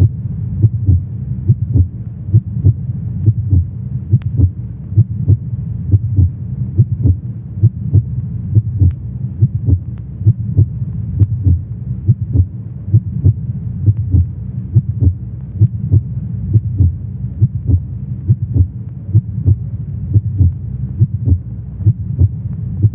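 A heartbeat sound effect: low, evenly spaced thumps at about two a second over a steady low droning hum.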